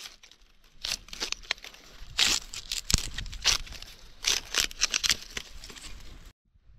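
Irregular rustling and tearing of vegetation, in quick uneven bursts, cut off abruptly about six seconds in.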